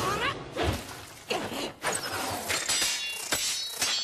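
Anime fight sound effects: a rapid series of sharp hits and metallic clashes, as of blades striking, with a high metallic ringing near the end.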